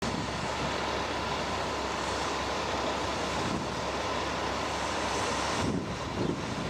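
Fire engine running steadily with a constant low rumble, mixed with wind noise on the microphone.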